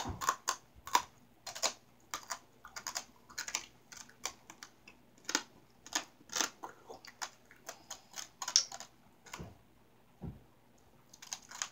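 Shards of light-bulb glass crunching between teeth as they are chewed: sharp, irregular crunches, a couple a second, the loudest about eight and a half seconds in. Two low thumps follow, then a short cluster of crunches near the end.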